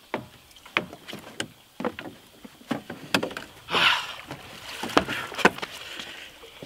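Irregular knocks and thuds of feet and gear on the hull and floor of a small open boat as someone climbs out, with a short rustling rush about four seconds in.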